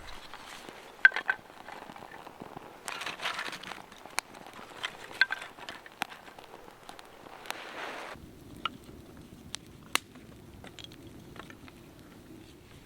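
A small campfire being lit and catching in kindling: scattered sharp crackles and snaps, with two short scraping rushes about three and seven seconds in.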